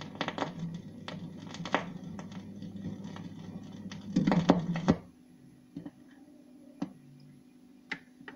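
Fidelity portable record player after the song on a 45 single has ended, its stylus riding the run-out groove: a low hum with repeated clicks and crackle. About four seconds in there is a louder burst of clatter as the tonearm leaves the record, and then the sound drops to a quieter background with a few scattered clicks.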